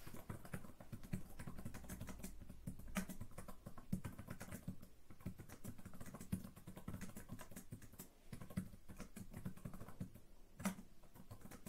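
Typing on a Lenovo ThinkPad Compact Keyboard with island-style (chiclet) keys: a faint, steady run of key clicks with a few louder key strikes.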